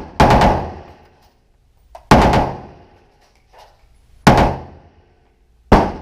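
Four single gunshots about two seconds apart, each with a short echoing tail.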